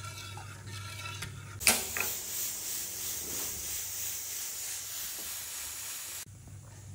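Pressure cooker letting off steam: a sudden pop as it goes off, then a loud steady hiss that cuts off abruptly about four and a half seconds later. It is the sign that the cooker has come up to pressure, the 'whistle' counted when boiling potatoes.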